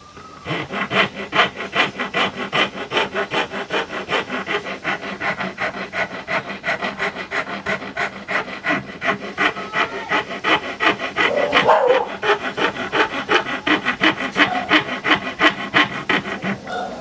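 Rhythmic back-and-forth abrasive strokes worked by hand on a small handmade knife, about three strokes a second.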